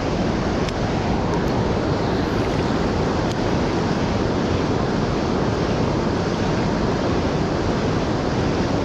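Steady rush of fast-flowing river water, an even noise that holds the same level throughout.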